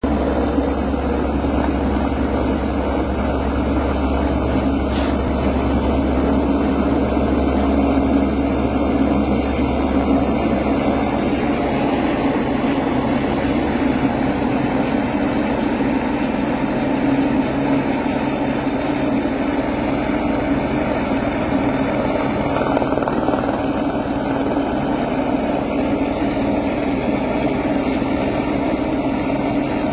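A helicopter running steadily, with a continuous rotor and engine sound. Its deepest rumble drops away about a third of the way in.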